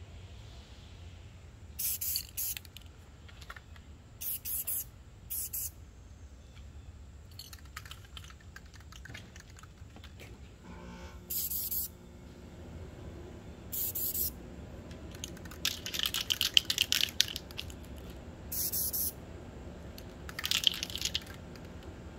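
Aerosol spray-paint can hissing in about ten short, irregular bursts. Most are under a second long; one longer, louder burst comes about two-thirds of the way through.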